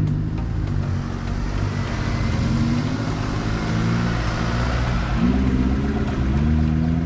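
A 4x4's engine running under load in low speed off-road driving, with the revs rising and easing off twice in the second half.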